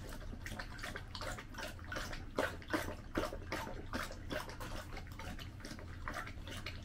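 Golden retriever lapping water, a run of short wet laps at about three a second.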